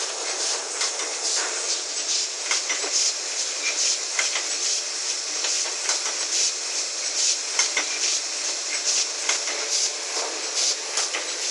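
MY-1080E automatic die-cutting machine running and cutting grey board: a steady mechanical clatter with sharp knocks at about two a second.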